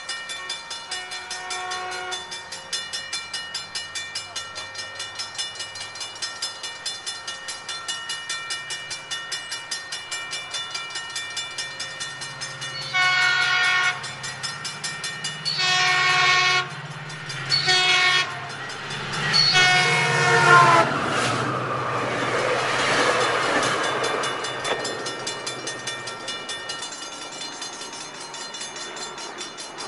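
A grade-crossing bell rings steadily while an approaching diesel locomotive sounds its air horn in the crossing pattern: two long blasts, a short one and a longer final one. Right after the last blast comes the broad rumble of the oncoming train, which swells and then eases off.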